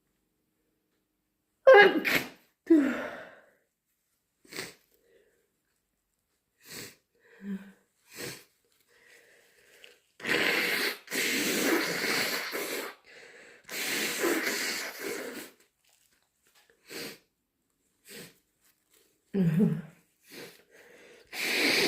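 A person sick with a cold sneezing loudly twice, about a second apart, then sniffling several times, then blowing their nose hard twice, each blow lasting a couple of seconds, with a third blow starting near the end.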